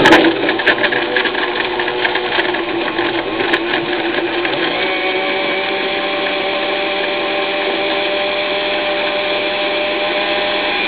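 Electric countertop blender switched on, its motor starting abruptly and running on steadily. For the first few seconds it rattles as it chops a hard tarallo biscuit in the liquid, then it settles into an even whir as the mixture smooths out.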